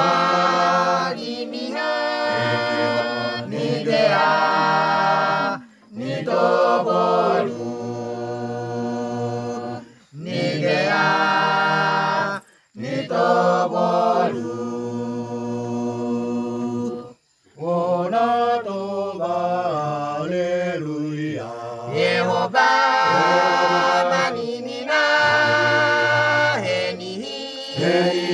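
Mixed village choir singing in the Misima language, sung phrases broken by short pauses every few seconds.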